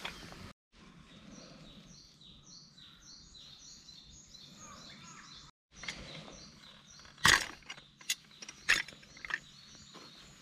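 Small birds chirping in a steady run of short high notes. From about seven seconds in, three or four sharp metal clicks and clinks as a small brass oil lantern is handled and opened up.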